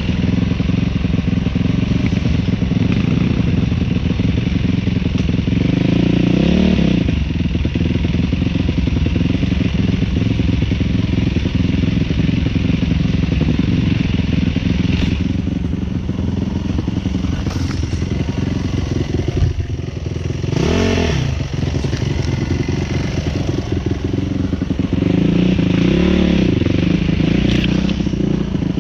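Dirt bike engine running under way on a rough trail, the revs swelling up and dropping back three times, with a few sharp knocks and rattles from the bike over bumps.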